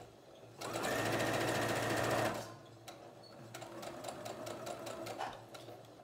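Brother electric sewing machine straight-stitching fabric: a loud, fast run of rapid needle strokes for about two seconds, a brief stop, then a second, quieter run.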